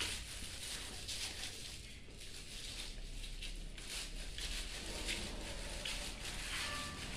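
Labrador retriever licking and mouthing a plastic bag of ice, giving faint, irregular wet licks and plastic rustles over a low steady hum.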